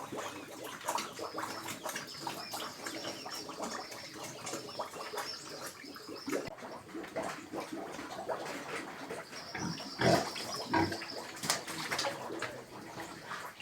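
Domestic pigs grunting and snuffling, with many irregular wet clicks and smacking noises; the loudest grunts come about ten seconds in.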